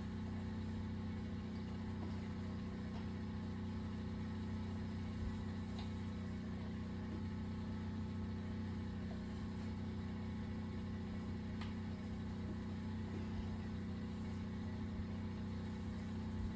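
A steady low mechanical hum, even in level throughout, like a running motor or appliance, with a few faint clicks.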